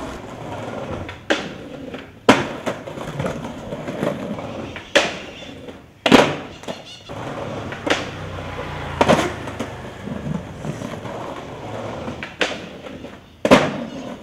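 Skateboard wheels rolling on concrete, broken by about eight sharp wooden clacks of tail pops, landings and board hits on a concrete ledge.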